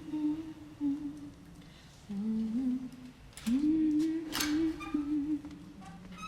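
A woman's voice humming a slow tune with no words, in short phrases that step up and down in pitch. A brief hiss about four seconds in.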